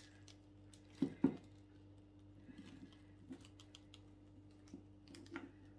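Small objects being handled on a table: scattered light clicks and taps, with two louder knocks about a second in, over a faint steady hum.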